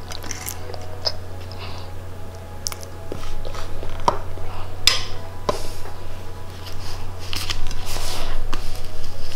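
A child chewing spaghetti, with small mouth noises and a few light clicks, over a steady low hum.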